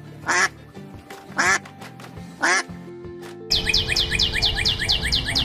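Duck quacks, one about every second, over soft background music. About three and a half seconds in, they give way to a fast run of high bird chirps, about seven a second.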